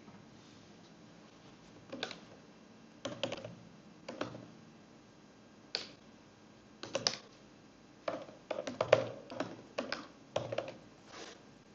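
Typing on a computer keyboard while entering shell commands: short, irregular bursts of key clicks that start about two seconds in and come thickest a little past the middle.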